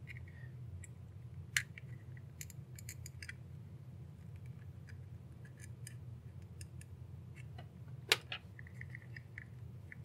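Plastic housing of a car engine start/stop button clicking as its clips and tabs are pried and worked apart by hand: scattered sharp clicks, the loudest about eight seconds in, with a short faint squeak soon after.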